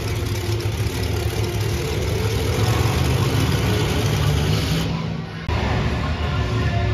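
Monster truck engine running loudly, its low note growing stronger through the middle. The sound breaks off abruptly about five seconds in, then a different loud sound comes back.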